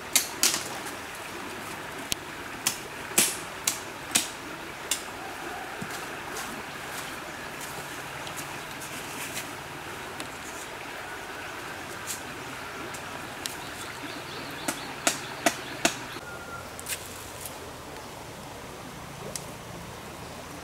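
A flowing stream rushing steadily, with scattered sharp knocks and clacks of bamboo poles being handled and set up, bunched in the first few seconds and again about fifteen seconds in.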